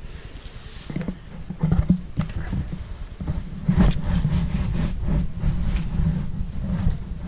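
Irregular scraping, rustling and knocks of a cardboard shipping box being wrestled open, mixed with rumbling handling noise on the microphone. The knocks get louder and denser about halfway through.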